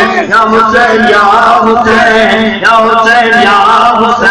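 A man singing Urdu devotional verse in praise of Hussain into a microphone, in long drawn-out melodic lines, with a steady low hum underneath.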